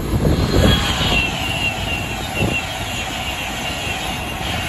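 High-speed passenger train passing close at speed: a steady rush of wheels on rail and air, with a thin whine that falls slowly in pitch over the first few seconds.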